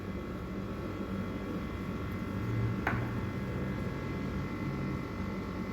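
Steady low background hum, with one short, light click about three seconds in.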